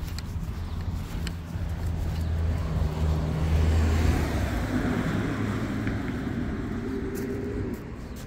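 A motor vehicle driving past on the street, its engine hum and tyre noise building to a peak about four seconds in and then fading away.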